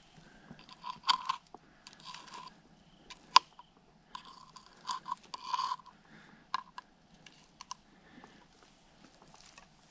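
Intermittent close rustling and crunching in dry pine straw, broken by several sharp clicks; the loudest click comes about a third of the way in.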